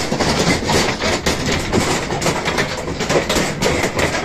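Charolais bull calves' hooves clattering and knocking on a slatted loading ramp as they are driven into a livestock truck, with bumps against the metal pen rails. It comes as a dense, irregular run of knocks.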